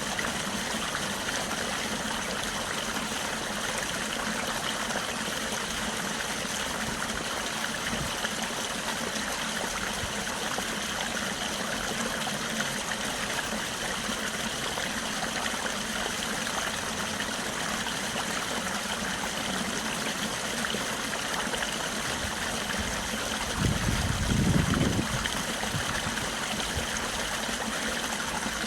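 Stream water flowing steadily. About twenty-four seconds in, a brief low rumble swells and fades within two seconds.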